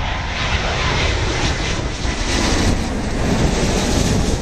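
A Boeing 777-200ER's Rolls-Royce Trent 892 jet engines on final approach, passing low overhead at landing-approach power. A loud, steady rush of jet noise fills everything from deep rumble to high hiss.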